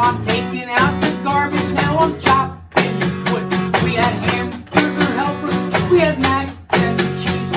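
Guitar music, strummed in a steady rhythm with short pauses between phrases.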